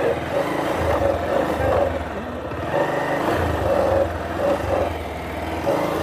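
Motorcycle engine running at low revs as the bike is eased slowly over rough ground.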